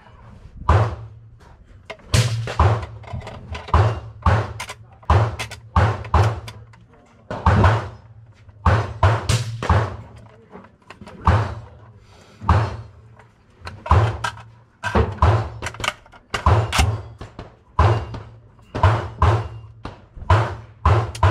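Gunshots on a shooting range, sharp reports at an irregular pace of roughly one every half second to a second and a half, each with a short echo.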